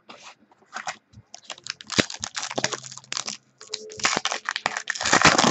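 A trading card pack's wrapper crinkling and tearing as it is opened by hand, in quick irregular crackles that build from about two seconds in.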